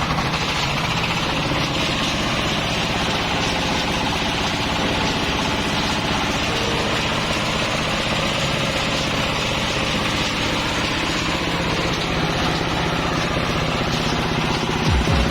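Plastic shredding machine running steadily, a continuous mechanical hum with fast even pulsing.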